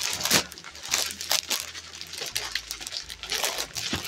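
Plastic-packed suits rustling and crinkling as they are handled, with short taps and knocks on the counter, ending in a sharper slap right at the end.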